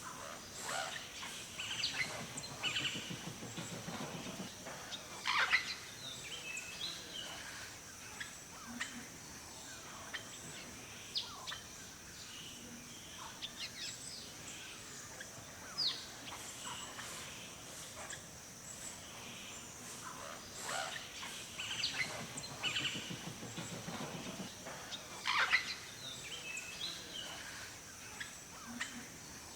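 Forest birdsong: many wild birds chirping and calling in short notes and quick sweeps, with a steady high hiss underneath. A louder cluster of calls comes near the start and again about twenty seconds later.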